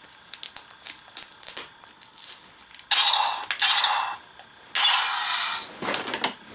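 Small plastic clicks as a toy wrist brace is handled. Then come two rasping rips of about a second each, near the middle and again about two seconds later, as its hook-and-loop strap is pulled and fastened around the wrist.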